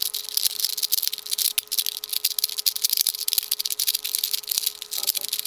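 Plastic Rubik's Cube being twisted quickly, a dense run of clicking and rattling as its layers turn.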